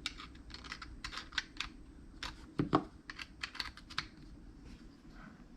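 Typing on a computer keyboard: an irregular run of key clicks that dies away about four seconds in.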